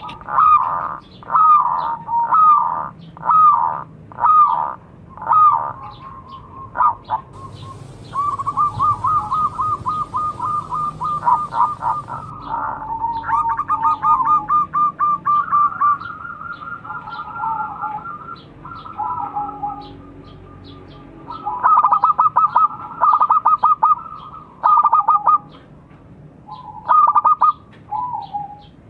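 Zebra dove (perkutut) cooing: phrases of short, quickly repeated coo notes, some run together into fast trills, with brief gaps between phrases.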